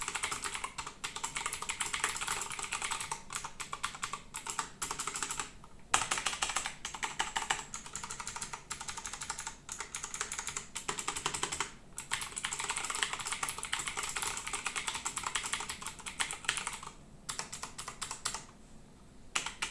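Fast typing on a Thunderx3 AK7 mechanical keyboard with Cherry MX Blue switches: a dense run of sharp, loud clicks, each key giving the tactile click at the end of its short travel. The typing pauses briefly a few times and thins to scattered keystrokes near the end.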